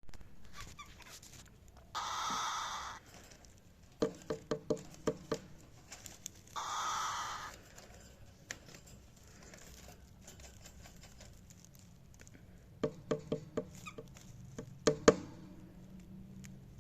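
Cockatiel sounds: two short, hissy, raspy calls of about a second each, then runs of quick sharp taps, the loudest near the end.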